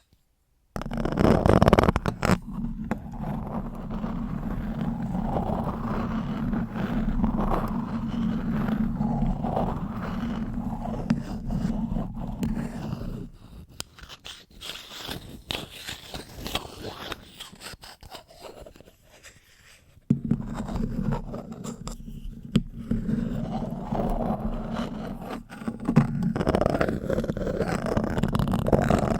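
A spoon scraping and rubbing on a microphone, heard as close, rumbly scratching. It drops to quieter, lighter scraping about 13 seconds in and comes back full about 20 seconds in.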